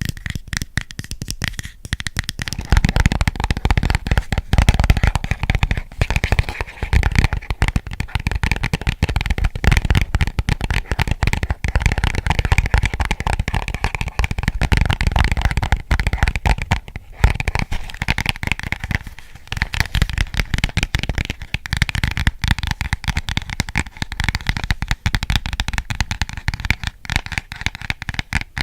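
Fast finger tapping on an object close to the microphone: a dense, unbroken run of many quick taps a second, with a couple of brief pauses.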